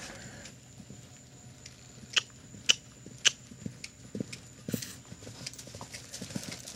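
Horse walking on a dirt arena: soft hoof falls about every half second, with a few sharp clicks, the loudest of them about two to three seconds in.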